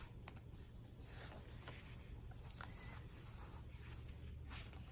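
Faint rustling and sliding of paper as the pages of a thick handmade journal are turned and handled, with a few soft ticks.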